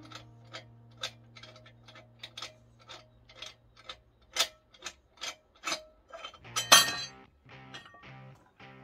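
Light metallic clicks and ticks, then a louder metal clatter about two-thirds of the way through, as a front shock-absorber strut and its coil spring are handled in a spring compressor. Background music with a low steady note runs underneath.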